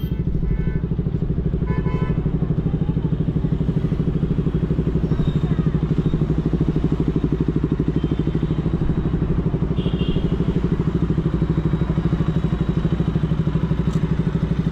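KTM motorcycle's single-cylinder engine idling steadily with an even, rapid beat.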